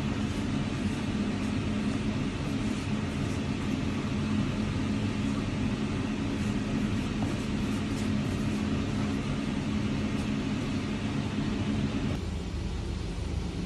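Steady low mechanical rumble with a constant hum, like a running vehicle or machine. The hum shifts lower and the sound thins about twelve seconds in.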